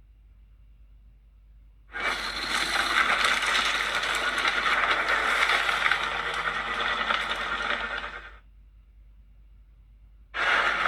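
Kaiju monster roar sound effect: one long, harsh, noisy call of about six seconds starting two seconds in, then a second call beginning near the end.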